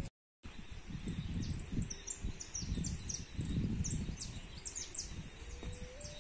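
Small birds chirping rapidly in short, high, falling notes, over low irregular rustling close by; a single sharp click about five seconds in and a low, drawn-out call near the end. The sound cuts to silence for a moment at the very start.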